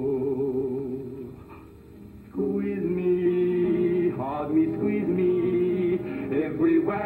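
Stage music with singing: held, wavering notes fade away over the first two seconds. Then a new chant-like passage of long sung notes starts abruptly, with no clear words.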